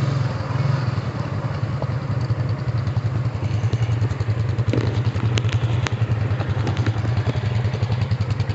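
Honda Rancher ATV's single-cylinder engine idling with an even, rapid pulse. A few sharp clicks sound a little past halfway.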